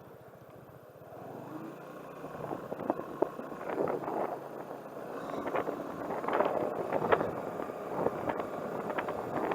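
Vehicle driving slowly, its engine running quietly, then tyre and road noise building from about a second in, scattered with irregular clicks and crackles.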